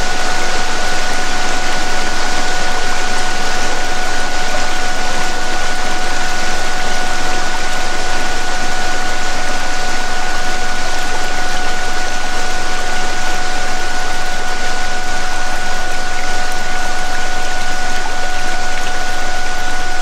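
Recorded waterfall rushing steadily, with a 'DNA repair' healing-frequency tone laid over it: two steady pure tones, the upper one an octave above the lower, held unchanging throughout.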